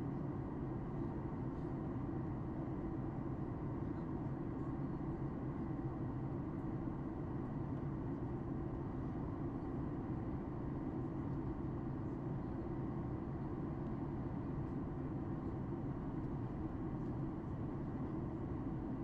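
Steady cabin drone of a Boeing 737 MAX 8 during descent: airflow and the CFM LEAP-1B engines blend into a deep, even rush, with a faint steady high tone above it.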